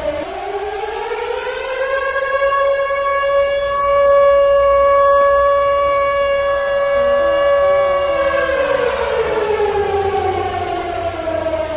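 Nuclear attack warning siren wailing: its pitch rises over about four seconds, holds steady for about four seconds, then falls away near the end.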